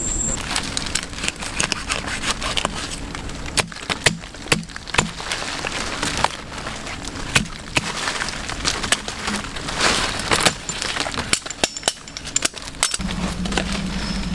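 Knife blade digging into soil and roots at the base of a plant: irregular scraping with many sharp knocks and cracks.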